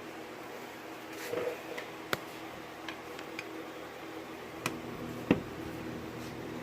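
Scattered small clicks and taps from a metal gate lock being handled and worked with a Phillips screwdriver, with a louder knock about five seconds in.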